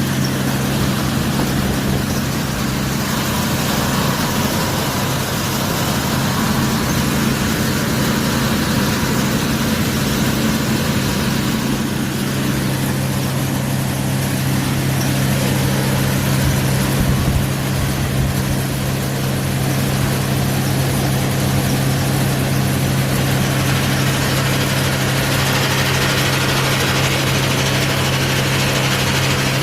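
Peanut shelling machine running steadily: a constant motor hum under a broad, even rattling noise.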